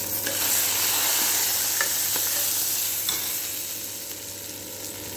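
Hot-oil tempering of cumin, dried chillies and curry leaves sizzling hard as it meets the yogurt, a dense hiss that slowly fades over the following seconds.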